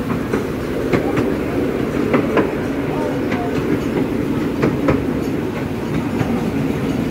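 Miniature railway train running along its track, heard from aboard: a steady rumble with irregular clicks of the wheels over rail joints.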